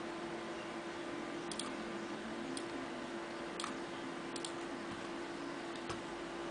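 Computer mouse clicks, about five spaced a second or so apart, some of them in quick pairs, over a steady hum and hiss.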